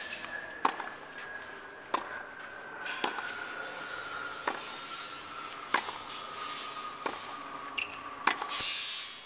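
Tennis practice rally: tennis balls struck by rackets and bouncing on a hard court, sharp pops a little over a second apart, about six in all. Under them runs a faint steady high tone that slowly falls in pitch.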